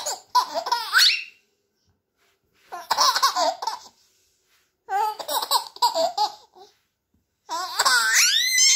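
Baby laughing in four bouts with short silences between them, the last one rising to a high squeal.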